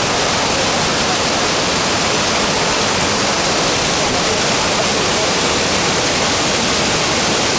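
Large, powerful waterfall in spate: a loud, steady rush of falling water.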